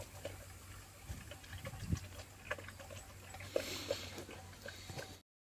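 Dog lapping and eating from a bowl: a run of small, irregular wet clicks and slurps over a faint steady hum, cutting off near the end.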